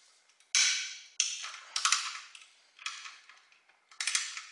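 Hand tool working on a rusted exhaust pipe-clamp bolt: about five short bursts of metal clicking and scraping, the loudest one about half a second in.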